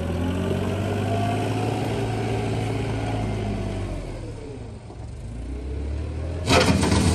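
Small wheel loader's engine running as it drives off, its note dipping about five seconds in and rising again. Near the end, a loud burst of crunching gravel as the lowered bucket pushes into a gravel pile.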